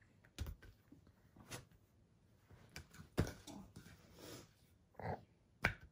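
A few soft knocks and rustles of a capuchin monkey and its toys on a bed, the loudest about three seconds in and a sharp knock near the end.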